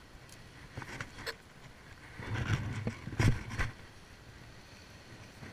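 Faint steady wash of sea and wind, with a few small clicks about a second in and a louder burst of knocks and rustling from about two to three and a half seconds in, as the fishing rod is handled close to the body-worn camera.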